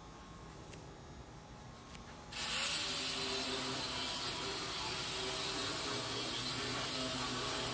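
Angle grinder with a cutoff wheel cutting through the steel hinges of a smoker's door. It starts suddenly about two seconds in and then runs steadily under load.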